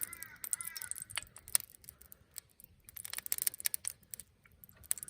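Oil spitting in a hot pan: scattered sharp crackles and ticks at an uneven pace, a few faint chirps in the first second. The owner takes the spitting of this waste vegetable oil as a sign of a little water in it.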